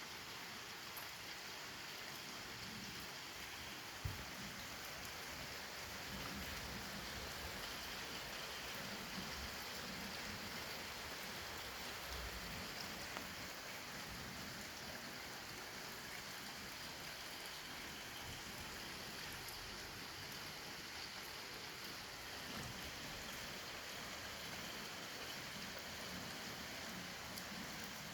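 Steady rain falling, a dense even patter of drops, with one sharp drip or tap about four seconds in.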